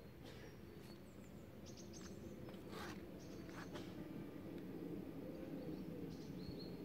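Faint outdoor ambience: a steady low rumble of distant road traffic, with small birds chirping now and then in short, high notes and a few soft taps.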